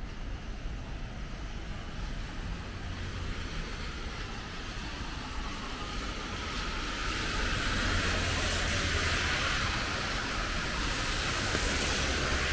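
Rainy city street sound: a steady hiss of rain and traffic on wet road over a low rumble, growing louder from about six seconds in.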